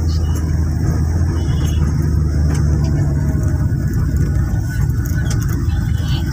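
Steady low rumble of vehicle engines in road traffic, with no change in pace.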